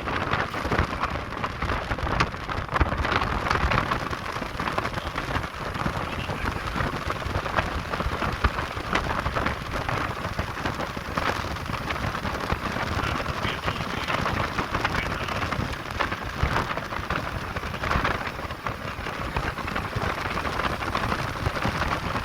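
Wind noise and road noise from a moving truck: a steady rush of wind crackling across the microphone, with low road rumble underneath.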